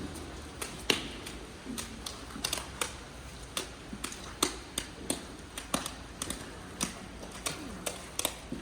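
Irregular sharp clicks and knocks, two or three a second, over a faint steady low hum.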